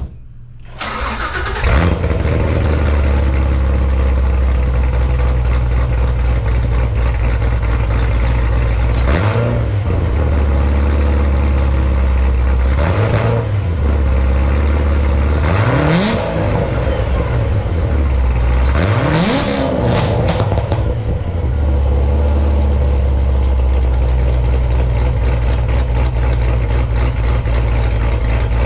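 Supercharged 6.2-litre LT4 V8 of a 2016 Corvette Z06, built by LMR to stage 2 with an upgraded cam, ported blower and long-tube headers. It fires up and settles into a steady deep idle through the exhaust. Four quick throttle blips come in the middle, each rising and falling back to idle.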